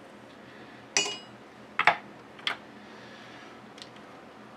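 Brass rifle cartridge cases clicking and clinking as they are handled and set into the reloading press: a few sharp metallic clicks, the first about a second in ringing briefly.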